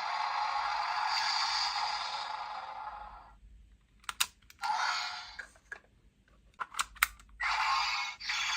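Electronic sound effects from a Dream Three Kingdoms legend-edition transformation device toy, played through its small speaker. A crackling hiss lasts about three seconds and fades out. Then come sharp clicks and two shorter hissing bursts.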